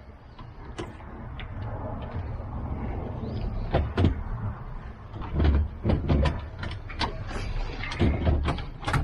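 Irregular metallic clicks and knocks of hand-tool work as the nut is tightened on the autopilot drive unit's steering tube, with a few heavier thumps about midway and near the end.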